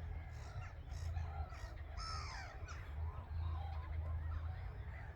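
Birds calling, a few short rising-and-falling calls clustered around the middle, over a low steady rumble.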